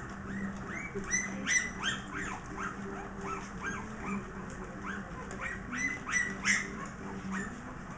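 Twelve-day-old Scottish terrier puppies squeaking and whimpering: many short, high, upward-sliding squeaks, several a second, with a steady low hum underneath.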